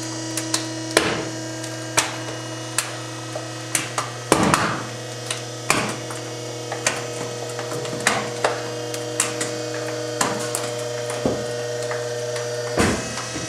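Compactor motor humming steadily while a space heater's plastic casing cracks and snaps as it is crushed. The sharp cracks come at irregular intervals, with a louder crunch about four seconds in and another near the end.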